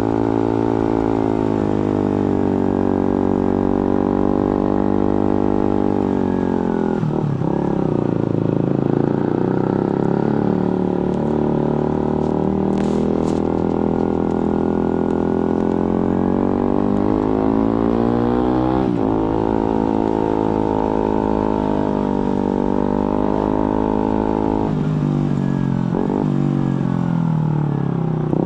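Suzuki GSX-R150's single-cylinder engine through an aftermarket Prospeed exhaust, heard from the rider's seat while riding. The engine note slides up and down in pitch, with sudden breaks in the note a quarter of the way in, about two-thirds through and near the end, typical of quickshifter gear changes made without the clutch.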